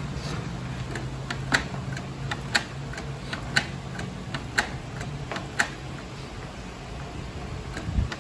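Canon PIXMA iP2870S inkjet printer's mechanism working: a sharp click about once a second with fainter clicks between, over a low motor hum that fades out about halfway through.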